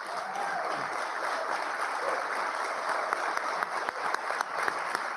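Audience applauding: dense, steady clapping from a large crowd, with a few sharper single claps standing out.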